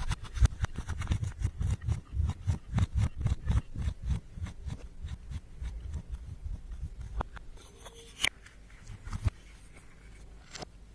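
Slime being squished and kneaded by hand, making rapid sticky clicks and pops over low squelches. The clicks come thick and fast at first, then thin out to a few scattered pops in the second half.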